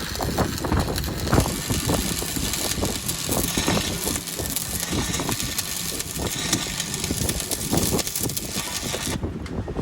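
An engine running steadily, with frequent short knocks over it.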